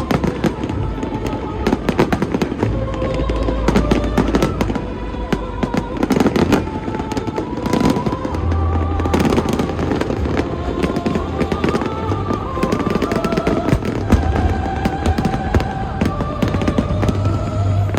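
Fireworks display: a dense, continuous run of bangs and crackling bursts, with music of long held notes playing underneath.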